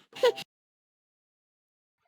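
The tail of a sung children's song with music, cut off abruptly about half a second in, followed by dead digital silence.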